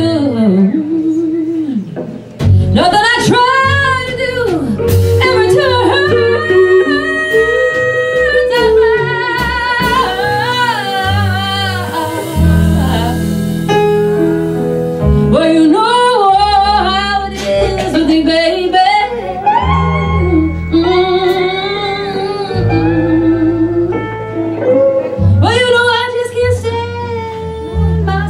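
Live band playing: electric keyboard and bass notes under a lead melody line with heavy vibrato.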